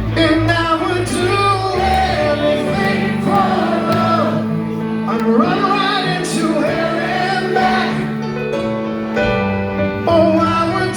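Live rock band playing a power ballad, with sung vocals over held bass notes and chords that change every couple of seconds.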